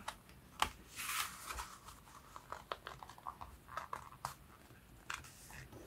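Thick card and paper being handled on a craft table: soft sliding rustles and a few light taps and clicks.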